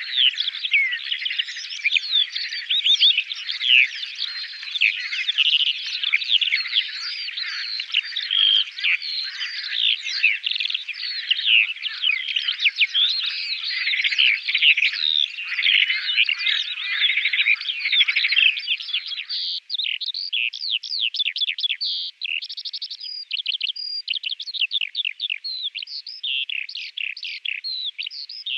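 Eurasian skylark singing its long, unbroken song of rapid chirps, trills and whistles. About twenty seconds in, the song turns to more separate, higher notes.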